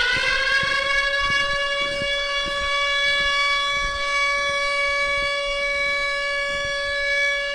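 Civil-defence air-raid siren, levelling off at full pitch at the start and then holding one steady, loud wail.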